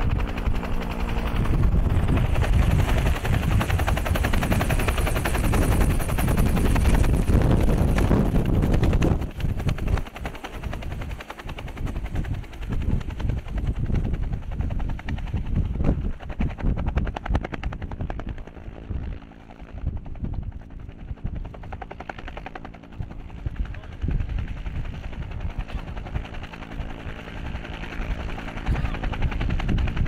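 UH-1 utility helicopter: rotor chop over the turbine engine as it hovers low and sets down. It is loudest for the first nine seconds or so, then eases to a steadier beat as it settles.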